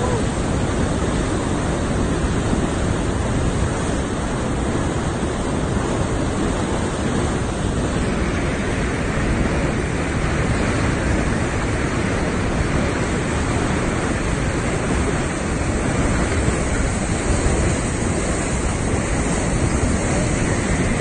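Steady rushing of churning river water, mixed with wind noise on the microphone.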